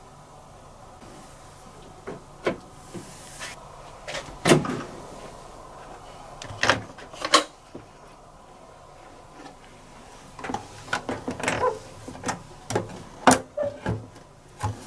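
Lid and drum flaps of a top-loading washing machine being opened and handled: scattered clicks and knocks. The loudest knock comes about four and a half seconds in, and the clicks come thicker near the end.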